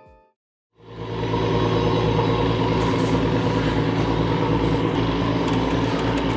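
A motor engine running steadily and loudly, a constant drone that cuts in about a second in.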